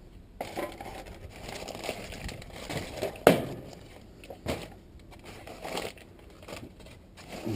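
Assorted items being rummaged through and pulled out from behind a truck seat: rustling and handling noise, with a sharp knock about three seconds in and a smaller one about a second later.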